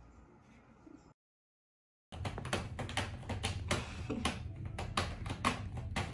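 Irregular scratching and clicking as a cat moves about and paws in a round cardboard scratcher bed, starting about two seconds in after a brief silence.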